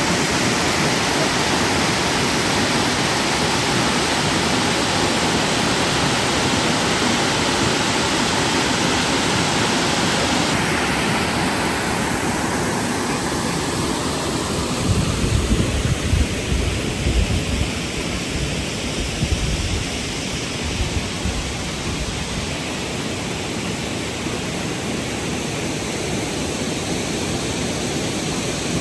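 Steady rushing of a large waterfall: a dense, even wash of falling water. Partway through, the high hiss thins out, and a few seconds of low buffeting bumps come about halfway through.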